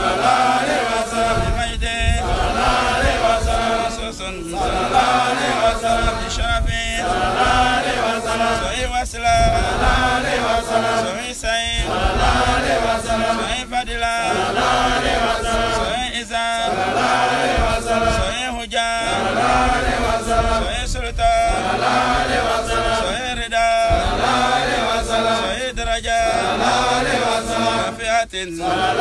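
Man chanting a litany of Arabic names of God and of the Prophet Muhammad from a booklet, in repeated phrases broken by short pauses about every two seconds.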